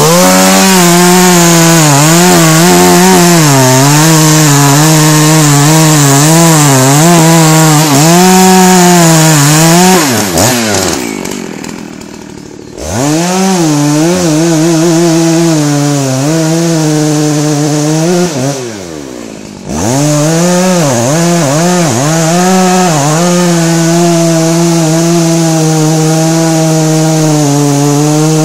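Dolmar 7900 two-stroke chainsaw cutting at full throttle into the trunk of a large, very hard beech, its engine pitch wavering as the chain bites. About ten seconds in, and again about eighteen seconds in, the revs fall away toward idle, then the saw revs back up and carries on cutting.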